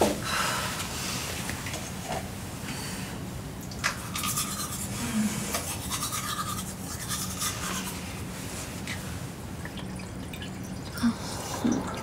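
Manual toothbrush scrubbing teeth in a run of short, brisk strokes.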